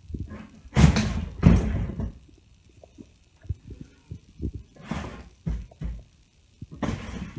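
A cardboard box scraping and bumping against a wooden folding table as a cat pushes at it with its head. The sound comes in several rustling, thudding bursts, loudest about a second in, with soft knocks between.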